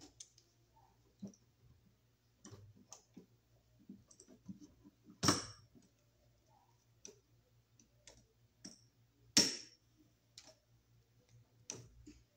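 Pliers clicking and tapping on a copper wire and a receptacle's screw terminal as a wire loop is bent and hooked around the screw: scattered light clicks, with two louder ones about five and nine seconds in.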